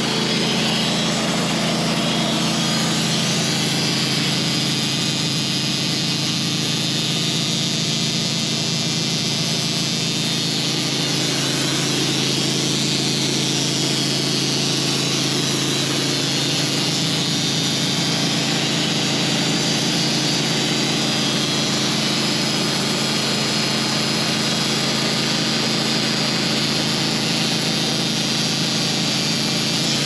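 Portable band sawmill running steadily under load, its engine working as the band blade cuts a board off a pine cant.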